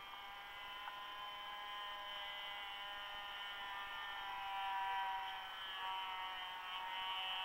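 Radio-controlled model airplane's motor and propeller heard from on board the plane: a steady buzzing whine with many overtones, its pitch wavering slightly, a little louder about five seconds in.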